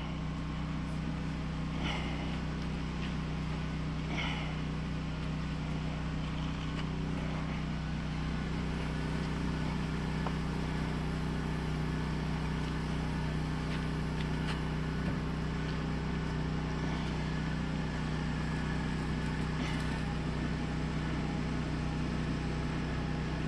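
Steady low mechanical hum of a motor or engine running evenly, with a few faint ticks.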